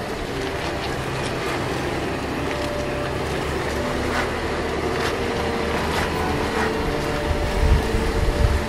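Toyota FJ Cruiser's V6 engine pulling steadily up a rough dirt track, with tyre noise and a few sharp knocks from the rocky surface, and heavier bumps near the end.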